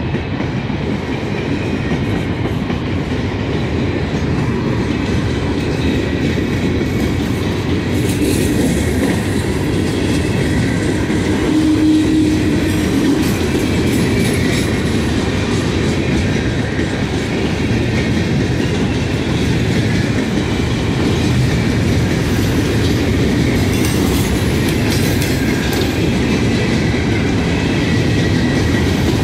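Freight train cars rolling past at close range: a continuous rumble of steel wheels on rail with clickety-clack over the rail joints. It grows gradually louder as the train speeds up.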